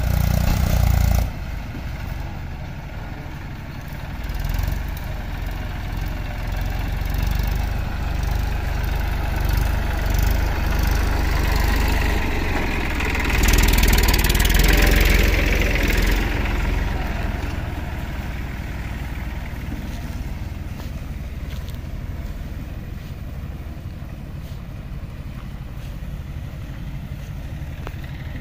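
Eicher tractor's diesel engine running steadily as it tows a loaded water tanker. About halfway through, a louder rushing noise rises over it for a few seconds.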